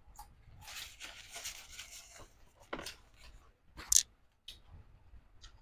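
Eating and food-handling sounds over a plate of fried fish: about two seconds of rustling crackle, then a few short sharp clicks, the loudest about four seconds in.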